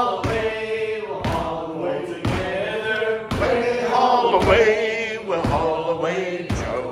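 Group of men singing a sea shanty a cappella, with a sharp thump on the beat about once a second keeping time.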